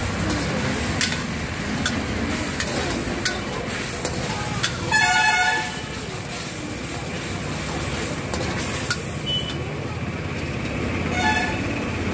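A ladle stirs and clicks against a wok as the sauce bubbles over a gas burner, under a steady rush. A vehicle horn honks loudly about five seconds in and briefly again near the end.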